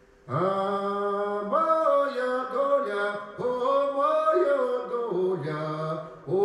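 A man singing a Russian spiritual song in two long, drawn-out phrases, with a short break about three and a half seconds in and another just before the end.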